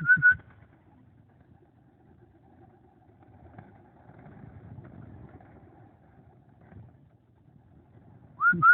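A person whistling short, rapid repeated notes to call birds, briefly at the start and again near the end. In between, a faint low rumble like a passing vehicle swells and fades around the middle.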